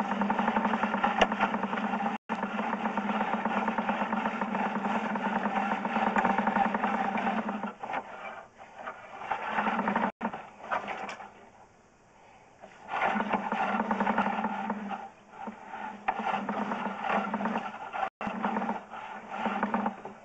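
Sewer inspection camera's push cable being fed into a sewer line: a steady, rasping rub that drops away for a few seconds around the middle and then comes back in uneven spells.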